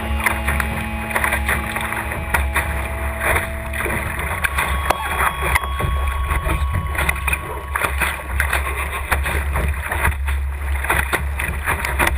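Water rushing and splashing along a Laser sailing dinghy's hull as it drives through chop, with a steady low rumble. Over it plays ambient synth music with long held tones that change about four seconds in.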